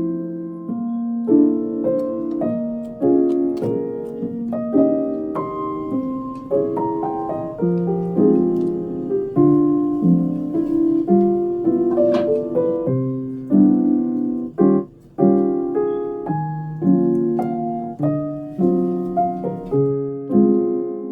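Background music: a gentle solo piano piece, notes and chords played continuously.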